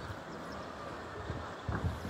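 Wind buffeting the microphone, with louder gusts near the end, over a steady rush of flowing river water.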